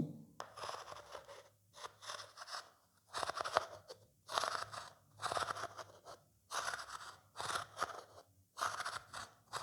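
Repeated rasping scrapes of a gourd rubbed against a vase, about one stroke a second, made as a stand-in for snoring.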